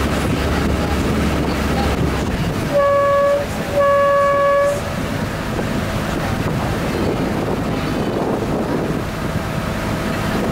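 Boat horn sounding two short blasts about a second apart, the second a little longer, over wind and water noise. Just before the horn, the low drone of the boat's engine drops away.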